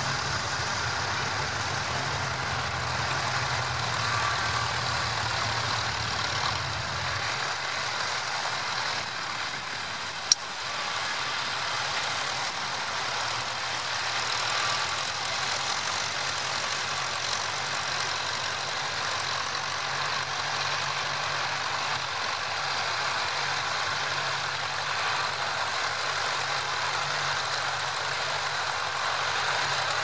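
Vintage tractor engines running steadily as they plough, with one sharp click about ten seconds in.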